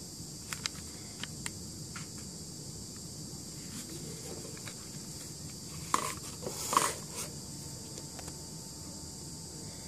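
Handling noise of a small plastic pocket Wi-Fi router: a few light clicks early, then two louder knocks about six and seven seconds in as it is set down on a table, over a steady background hiss.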